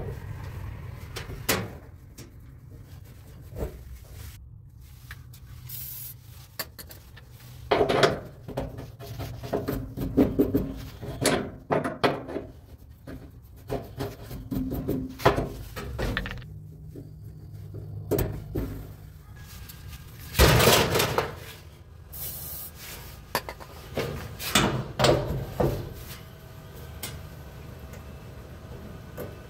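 Hands working on a clothes dryer's drum support roller: scattered clicks, knocks and rubbing as the shaft is cleaned and greased and the new roller is fitted. A louder clatter comes about two-thirds of the way through.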